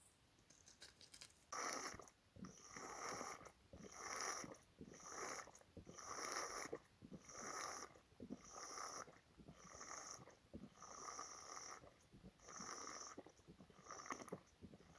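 A large animal close to the trail camera making a regular series of breathy, snore-like sounds, about one a second, starting a couple of seconds in.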